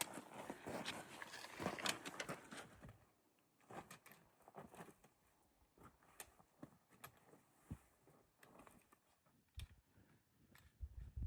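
Footsteps crunching and scuffing on a rocky, gravelly trail, busy for the first few seconds, then sparse and faint, with a couple of soft low thumps near the end.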